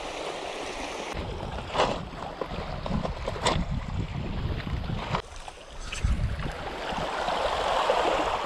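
Wind buffeting the microphone over lapping sea water, with two sharp knocks around two and three and a half seconds in.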